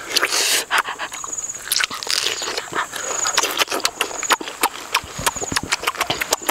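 Close-up eating sounds of juicy yellow fruit: wet biting, chewing, slurping and lip-smacking, with many quick sharp clicks.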